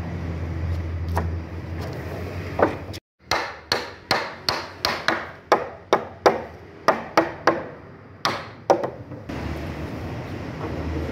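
A rapid run of about fifteen hammer blows on wood, two to three a second, knocking the joints of a wooden panel door frame together during assembly. It starts about three seconds in and stops near nine seconds, with a steady low hum before and after.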